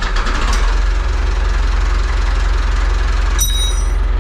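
Renault 70-34 tractor's diesel engine running steadily right after starting, with a fast even firing beat. About three and a half seconds in, a high-pitched whine comes in on top of it.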